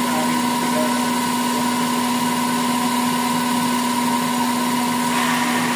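Steady mechanical hum from a car's engine bay, with a constant low drone and a higher whine over a hiss. About five seconds in, the whine fades and the hiss grows.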